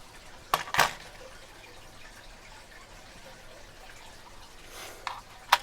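A few small sharp clicks and taps from a padlock and its key being handled: two close together about half a second in, and another near the end.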